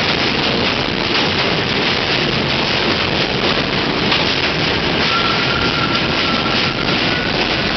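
New York City Subway R68 train with Westinghouse propulsion pulling into an elevated station: a loud, steady rumble of steel wheels and running gear on the rails. A thin high squeal joins about five seconds in.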